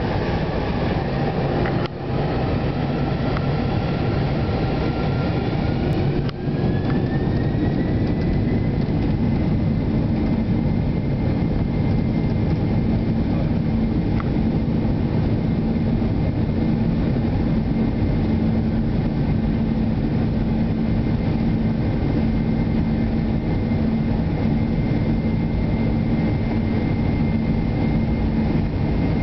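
Boeing 747-8's GEnx jet engines heard from inside the passenger cabin: a loud, steady rumble with a whine that rises in pitch a few seconds in and then holds steady, as the engines spool up to takeoff power for the takeoff roll.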